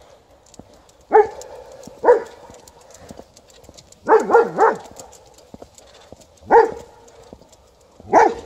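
A White Swiss Shepherd barking out of sight: single barks spaced a second or two apart, with a quick run of three or four barks about four seconds in.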